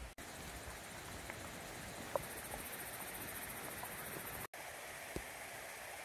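Steady forest ambience: an even rushing noise with a faint high buzz through the middle and a few soft ticks. The sound cuts out for an instant twice.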